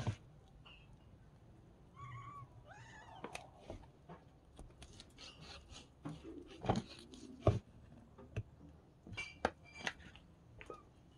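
A cat meowing twice, short bending calls about two and three seconds in, followed by a few scattered sharp knocks.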